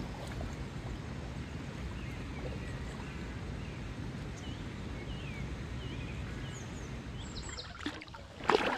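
Steady outdoor background rush with a few short bird chirps in the middle. Near the end the sound changes abruptly, followed by a brief sharp burst.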